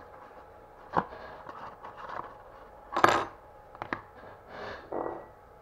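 Cardboard box and paperwork being handled while the small flat metal Cox engine wrench drops out onto the tabletop. There is a click about a second in, the loudest clatter about three seconds in, and two quick ticks just after.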